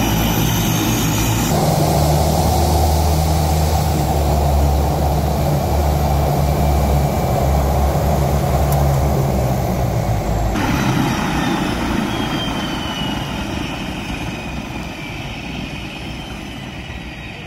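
Single-engine floatplane's propeller engine running at low power as it taxis on the water. The sound changes abruptly twice, about a second and a half in and about ten seconds in, and it fades steadily over the last several seconds.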